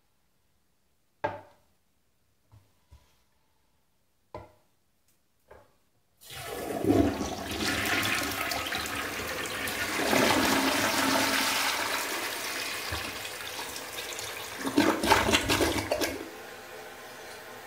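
A few light knocks, then, about six seconds in, a 1953 Universal-Rundle Commando forward-trap toilet flushes: water rushes and swirls through the bowl for about ten seconds, with a louder surge near the end. It then drops to a quieter steady water sound as the bowl refills.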